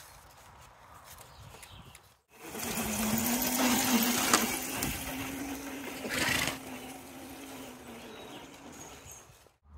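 Child's electric mini motorbike riding along, its motor giving a steady whine. The whine starts about two seconds in, is loudest in the middle with a sharp click partway through, and fades away near the end.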